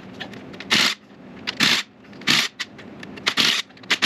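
Cordless DeWalt driver with a T55 Torx bit run in short bursts, about four of them roughly a second apart, undoing the dual-mass flywheel bolts.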